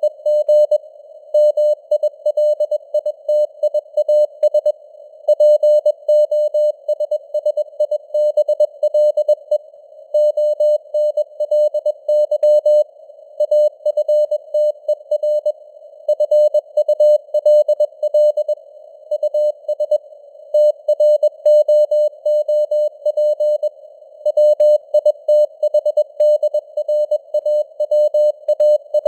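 Morse code (CW) at 21 words per minute: a tone of about 600 Hz keyed into dots and dashes with short pauses between words, over a steady narrow band of simulated receiver hiss, the signal strength varying as with radio fading (QSB).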